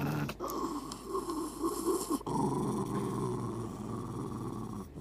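Small curly-coated dog growling with teeth bared while being hugged and kissed: a continuous low growl, broken by two short pauses. The owner takes it as morning grumpiness.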